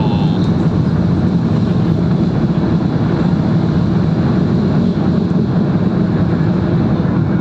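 Inside the cabin of a Boeing 737 MAX 8 at takeoff thrust: its CFM LEAP-1B jet engines running at full power, with a steady, loud rushing rumble as the airliner races down the runway to lift off.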